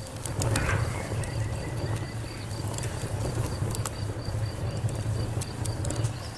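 Fire crackling: irregular sharp pops and snaps over a steady low rumble of burning, with a faint high pulsing chirp running underneath.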